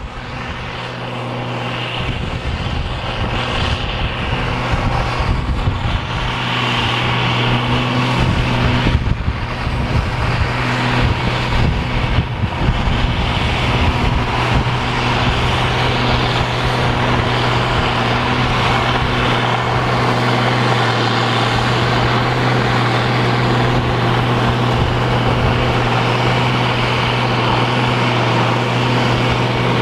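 International 5088 tractor's six-cylinder diesel engine running steadily under load, powering a New Holland FP230 pull-type forage harvester as it chops soybean straw and blows it into a forage wagon. A steady low engine drone under an even whooshing, whirring noise, swelling in over the first two seconds.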